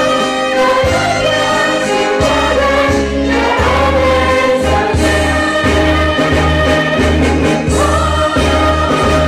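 Group of young voices singing together in unison over musical accompaniment with held bass notes that change every half second or so.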